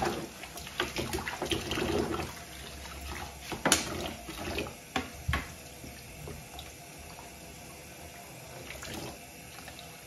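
Kitchen tap running water over a plastic dishwasher spray arm held under it in a sink of suds, flushing water through the arm's nozzles to check they are clear. A few knocks and clicks in the first half, the sharpest a little under four seconds in.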